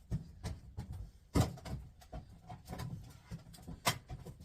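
A series of irregular knocks and clatter as the cassette deck's sheet-metal top plate is handled and flattened down, the loudest knock about a second and a half in.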